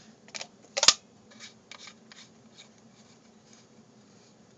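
Handling noise as the camera is set down and the gear is handled: a sharp knock about a second in, then a few soft clicks and rustles that die away.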